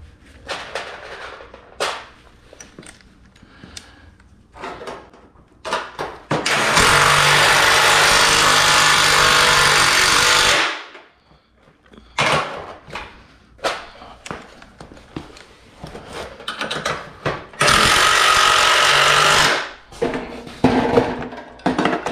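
Cordless Milwaukee impact driver driving screws through a top roller bracket into a garage door panel: one long run of about four seconds, then a shorter run of about two seconds. Clicks and knocks of metal brackets and screws being handled come in between.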